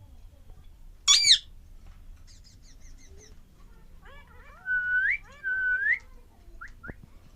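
Alexandrine parakeet calling: a loud, short harsh screech about a second in, soft chatter, then two loud whistled notes that each rise at the end, and a couple of brief chirps near the end.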